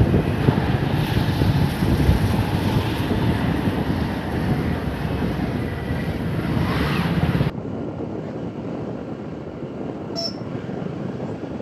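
Road and wind noise from a moving vehicle, with wind buffeting the microphone; about two-thirds of the way through it cuts off abruptly to a quieter, thinner running noise.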